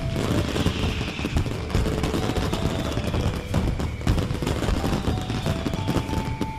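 Fireworks popping and crackling in rapid, continuous volleys with a low rumble, over a faint melody.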